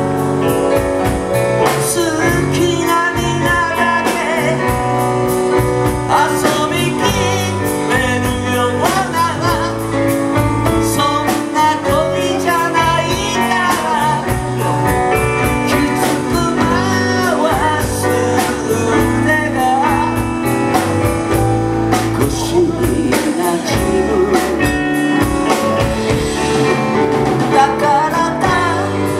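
Live band performing a song: a male lead vocal sung into a microphone over electric guitars, electric bass, keyboard and a drum kit keeping a steady beat.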